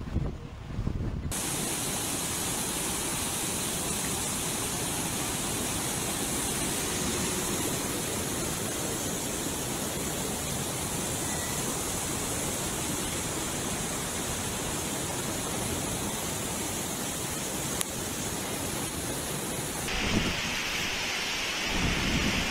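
Steady rush of a flood-swollen river torrent, an even hiss of fast-moving water. Near the end it gives way to typhoon wind and heavy rain, with gusts buffeting the microphone.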